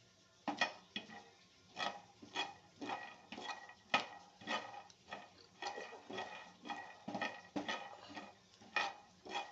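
Spatula stirring ingredients in a pan on the stove for peanut chutney, scraping and clinking against the pan in regular strokes about two a second.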